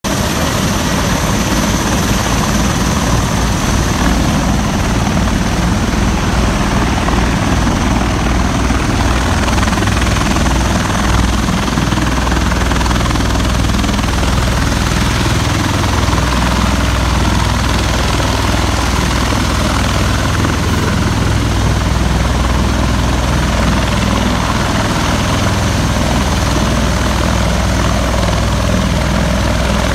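Rotor and turbine noise from V-22 Osprey tiltrotors running on the heliport pad and a helicopter flying nearby: a loud, steady drone. A fast low beat of rotor chop in the first dozen seconds settles into an even low hum.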